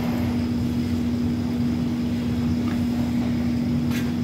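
A steady machine hum with a low rumble underneath, from an electric motor or fan running, with a light click near the end.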